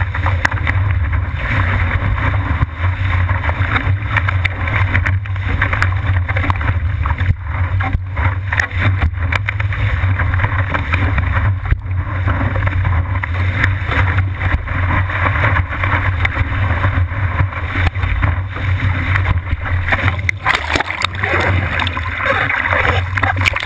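Water rushing and spraying past the nose of a surfboard riding a wave, with wind buffeting the board-mounted GoPro's microphone: a steady low rumble under a hiss of spray.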